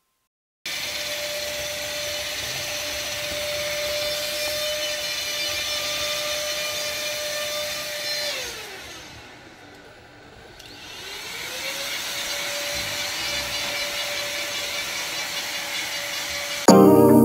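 A small electric motor whirring steadily with one held tone. About halfway through it spins down, with its pitch falling away, then spins back up to speed.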